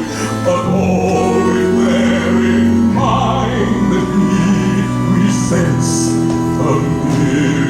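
Voices singing long, wavering notes of a stage-musical number over instrumental accompaniment.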